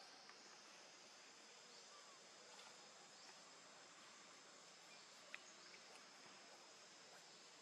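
Faint, steady high-pitched insect drone in the forest, with a few short chirps and one sharp click about five seconds in.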